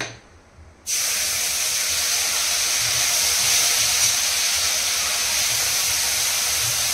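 Wet paste of cumin, ginger and chilli hitting hot oil in a kadai, sizzling: a steady hiss that starts suddenly about a second in as the masala begins to fry.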